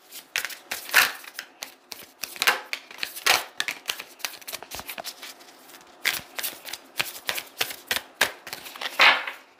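A deck of Moonology oracle cards being shuffled by hand: an irregular run of quick card clicks and slaps, with a few longer swishes of cards sliding against each other.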